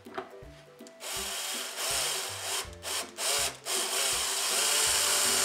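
Cordless drill/driver driving small screws into wood, the motor running in several bursts with short stops between, from about a second in until near the end.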